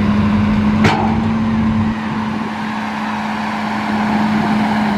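Hitachi ZX210 excavator's diesel engine running at a steady high speed while working its hydraulics, with a single sharp clank about a second in.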